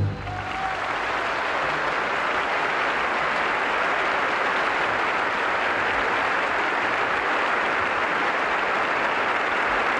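Large theatre audience applauding steadily; the clapping swells in the first second as the orchestra's last note dies away.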